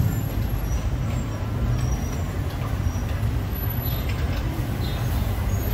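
Street traffic: a steady low engine rumble from motor vehicles, with a few faint high squeaks.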